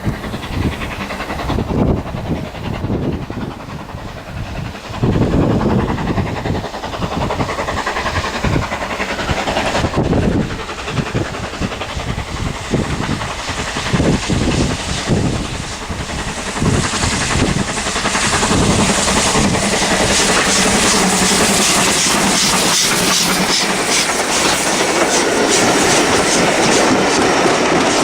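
Ivatt Class 2MT 2-6-0 steam locomotive approaching with its train, wheels and carriages clattering over the rail joints. The running grows steadier and louder in the second half as the train draws near.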